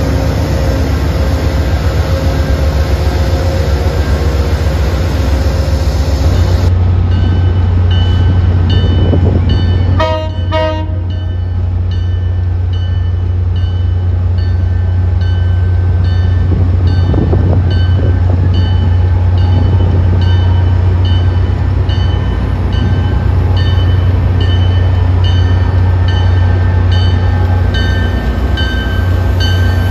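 Diesel locomotives idling with a heavy, steady low rumble. About ten seconds in a short horn toot sounds, and then an arriving commuter-rail locomotive's bell rings over and over at an even pace as the train pulls in.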